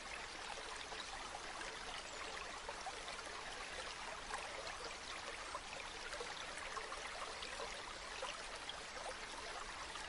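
Small stream running over rocks, a steady babble of water.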